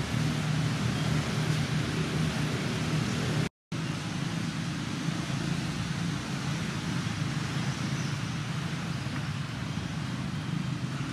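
Steady outdoor background noise with a low, even hum. It drops out completely for a moment about three and a half seconds in, then carries on a little quieter.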